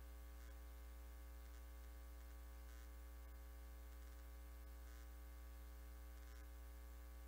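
Near silence: a steady low electrical hum with a ladder of overtones, and a few very faint ticks.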